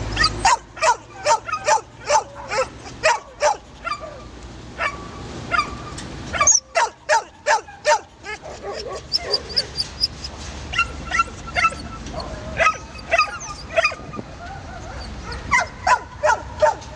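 Many dogs carried on a transport truck barking and yelping over one another without let-up, with some drawn-out whines among the barks.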